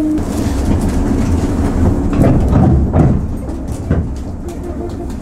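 Interior of a JR 103 series electric train running slowly: a steady low rumble of motors and wheels, with a few heavy clunks about two, three and four seconds in as the wheels cross rail joints.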